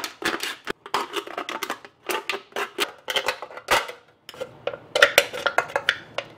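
Knife blade cutting through the thin aluminium side of an empty beer can, a dense, irregular run of sharp clicks and crinkles, rougher from about four seconds in as the cut panel is worked open.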